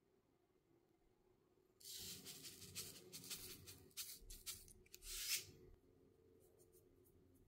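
Dressing sputtering out of a squeeze bottle onto salad, then a seasoning shaker shaken over it: a run of scratchy, hissing bursts from about two seconds in to near six seconds.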